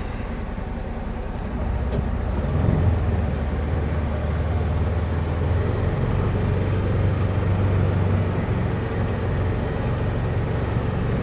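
Polaris Ranger side-by-side's engine running as it pulls away, picking up about two seconds in and then holding a steady drone while driving.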